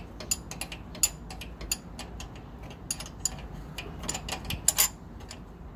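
Small metal clicks and clinks of a wrench on a brake hose fitting, turned in short strokes and repositioned while the fitting is threaded in. The clicks come irregularly, with a quicker cluster of sharper ones near the end.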